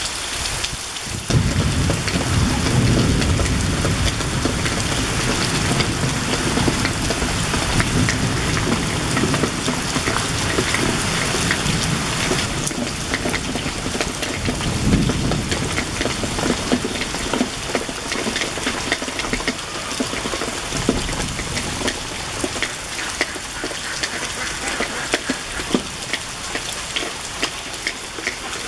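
Heavy tropical rain pouring steadily, a dense hiss full of close drop ticks. A low rumble comes in about a second in and eases off past the middle.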